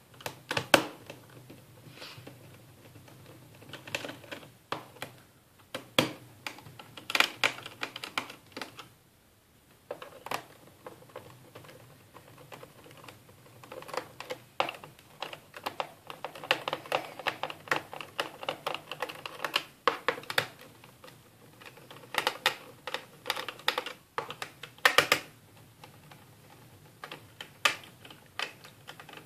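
Small screwdriver backing screws out of the underside of a Sony Vaio laptop, with the screws picked out by hand: irregular clicks, ticks and light scraping. There is a brief lull about nine seconds in.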